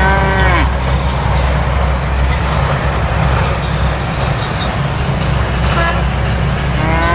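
A cow mooing: one moo at the start and another near the end, each rising and then falling in pitch, over a steady low rumble.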